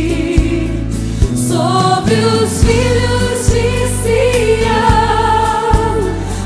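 Christian worship song: a sung melody enters about a second and a half in, over bass and a regular drum beat.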